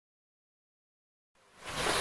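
Dead silence, then about one and a half seconds in, a steady rushing noise fades in quickly and holds.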